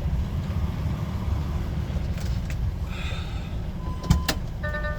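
HGV engine running steadily, heard from inside the cab as a low rumble. A short hiss comes about three seconds in, a sharp click about a second later, and a short electronic beep near the end.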